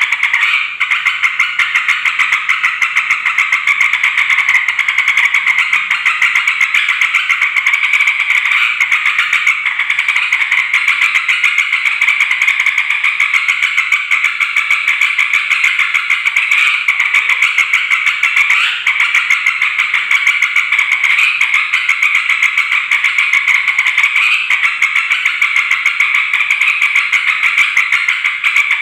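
Yellow-vented bulbul (trucukan) giving its noisy, agitated chatter: a fast, dense and unbroken run of calls with hardly a pause. This excited calling is used to provoke other bulbuls into answering.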